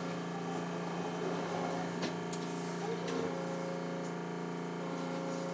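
Steady electrical hum of several even tones inside a car of Osaka's driverless New Tram people mover, with a couple of light clicks about two seconds in.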